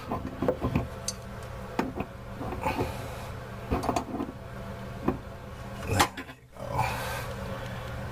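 Scattered clicks and knocks of a wrench and hands working loose the water supply connections under a bathroom sink, over a steady low hum.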